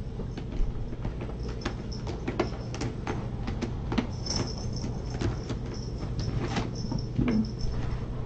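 Light, irregular knocks, taps and soft thumps, a few a second, from kittens scampering, pouncing and wrestling on a fleece cat bed and scratcher, over a steady low hum.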